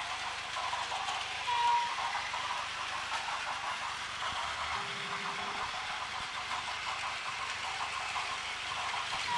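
Several battery-powered Plarail toy trains running on plastic track: a steady whirring and rattling of their small motors and wheels. A short clear tone sounds about a second and a half in, and a lower held tone around the middle.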